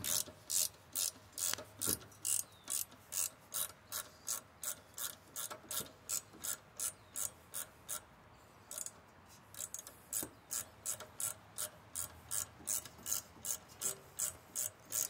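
Socket ratchet wrench clicking in quick, even strokes, about three a second, as a loosened bolt spins out of an old engine. It pauses for about two seconds midway, then carries on.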